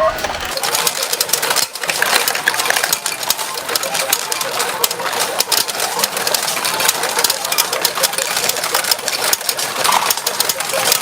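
Retro pachinko machine in play: a dense, continuous clatter of steel balls rattling through the pins and trays, many small rapid clicks.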